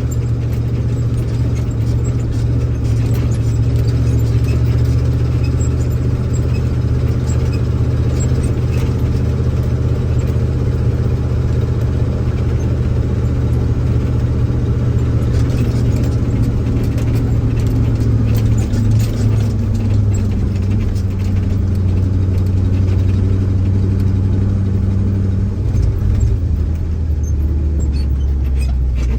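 Grain truck's engine running at low speed with a steady hum as it pulls onto the elevator scale, stepping down in pitch a little past halfway and again near the end, with some light clattering.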